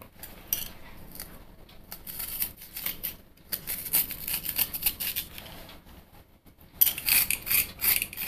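A spoon scraping the seed and white inner membrane out of a halved chow chow (chayote), in several runs of quick, crisp strokes with short pauses between.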